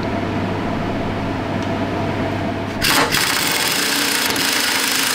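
Handheld power drill running, drilling out a bolt head on a steel tank turret ring. It runs steadily, then about three seconds in becomes much louder and harsher as the bit bites into the metal.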